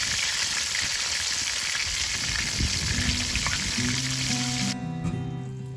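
Whole battered bluegill pan-frying in hot oil in a cast-iron skillet: a steady sizzle that cuts off suddenly near the end. Guitar music comes in about three seconds in and carries on.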